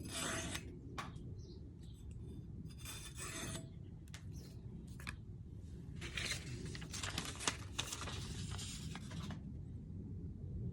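Rasping strokes of a tool scraping over steel, with a few short strokes at first and then a quick run of strokes from about six seconds in until nearly the end.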